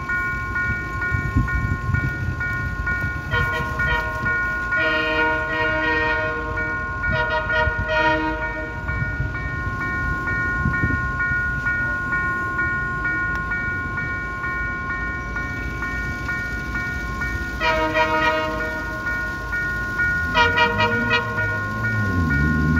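Multi-chime air horn of an approaching Dalian CKD8H diesel locomotive sounding five blasts: three in the first several seconds, the middle one longest, then two more near the end. The horn sounds over a steady high electronic tone. The diesel engine's running grows louder near the end as the train draws near.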